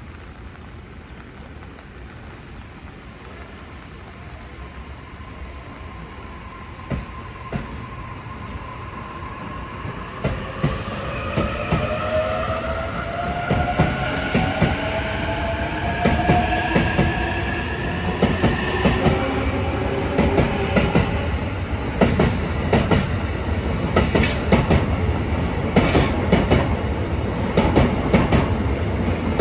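JR East E259 series Narita Express electric train pulling out and accelerating. From about ten seconds in, its motors whine rising in pitch, and the wheels click over the rail joints, coming faster and louder as the cars pass close by.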